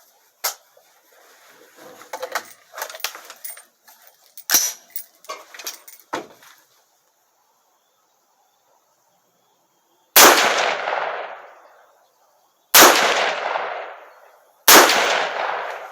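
Metallic clicks and clacks of the rifle being handled, then three gunshots from an AR-15 with a 7.62x39 upper, a few seconds apart, each trailing off over a second or more.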